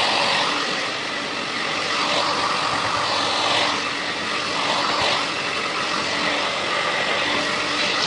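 Handheld hair dryer blowing steadily, a loud even rush of air with a faint hum, its level swelling and dipping slightly.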